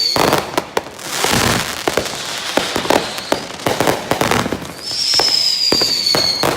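Fireworks going off in quick succession, with sharp bangs and pops and stretches of hissing crackle. Near the end comes a high whistle that slowly falls in pitch.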